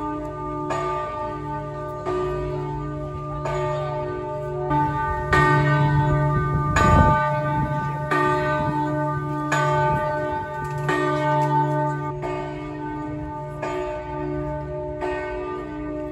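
Church bells pealing: several bells struck in turn, a stroke about every 0.7 s, each leaving a long ringing tone and a low hum that carries on between strokes.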